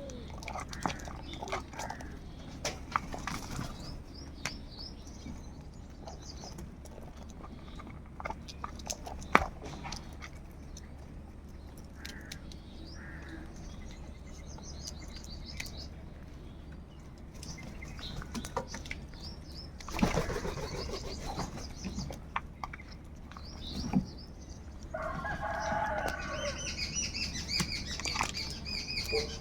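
Crows flapping their wings, with scattered knocks and clicks. A harsh crow call comes about 25 seconds in, and small birds chirp near the end.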